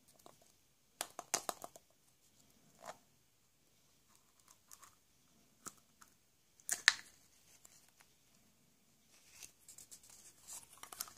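Hands working a hollow plastic surprise-egg capsule: clusters of sharp plastic clicks and creaks, the loudest a snap about seven seconds in as the two halves come apart. Near the end, light rustling of a small paper sticker.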